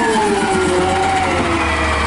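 McNeilus ZR side-loading garbage truck running, its engine and hydraulics giving a steady low hum under a whine that slowly falls in pitch as the automated arm begins to extend toward the cart.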